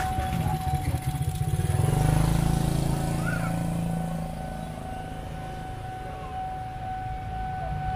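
A motorcycle's engine passing close by: it swells to its loudest about two seconds in, then fades away.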